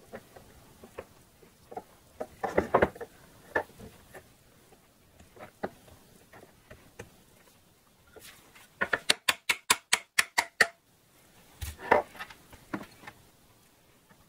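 Small metal compressor parts handled by hand: scattered clicks and taps as the piston's connecting rod is worked onto the motor shaft, with a quick run of about a dozen sharp clicks about nine seconds in and a single knock near the end.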